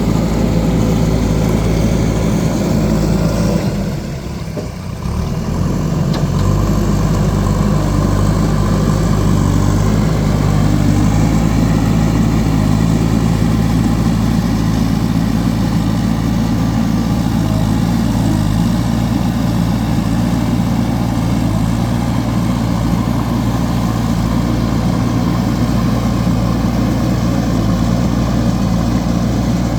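JCB backhoe loader's diesel engine running steadily under work, briefly quieter about four seconds in.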